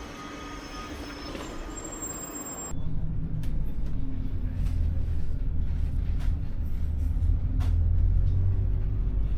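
A quieter hiss with a few faint high tones, then a sudden jump about three seconds in to a city bus's engine rumbling low, heard from inside the bus, with light scattered rattles.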